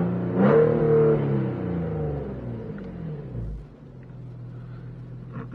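Infiniti G35's 3.5-litre V6 exhaust with Motordyne Art Pipes test pipes, heard from inside the cabin: a loud rev that falls away over about three seconds as the throttle is let off, then a quieter steady drone. The owner notes a small exhaust leak at the Y-pipe.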